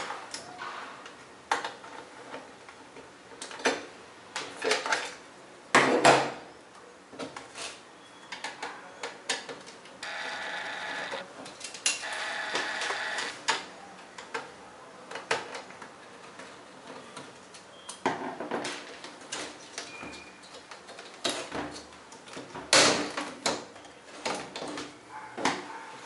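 Scattered clicks and metallic knocks from a screwdriver, loose screws and hands on the sheet-metal chassis of an LG LCD monitor being unscrewed, the loudest knocks about six seconds in and near the end. Two short steady pitched hums come about ten and twelve seconds in.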